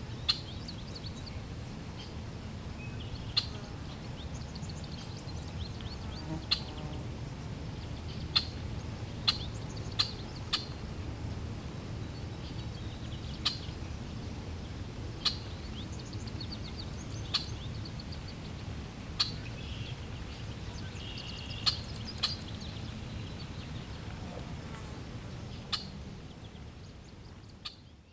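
Birds giving short, sharp calls every second or two over a low, steady rumble of background noise, all fading out near the end.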